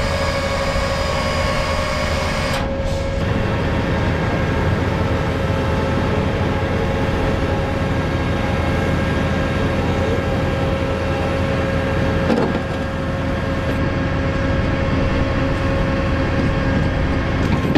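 M270 MLRS tracked launcher's diesel engine running steadily, with a steady whine over the engine noise.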